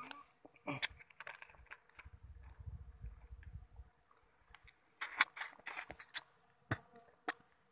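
Scattered sharp clicks and crackles with light rustling, bunched just after the start and again about five to six seconds in, with a low rumble of handling noise in between.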